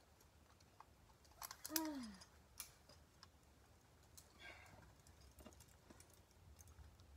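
Near silence with faint scattered clicks and rustles, and a short voiced sound falling in pitch about two seconds in.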